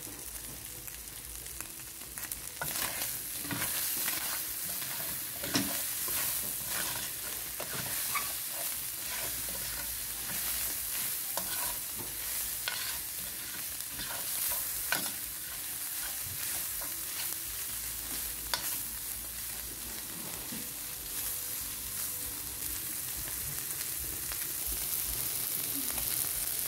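Saltfish, onion and bell peppers sizzling in oil in a stainless steel pan. From about two and a half seconds in, a utensil stirs the mix, clattering and scraping against the pan in irregular strokes.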